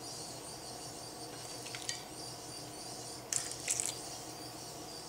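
Red wine poured from a bottle over a pork loin in an aluminium foil tray, faintly splashing and trickling, with short crackly spatters about two seconds in and again around three and a half seconds in.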